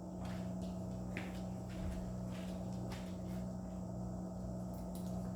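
A steady low hum with a few faint, short clicks or taps.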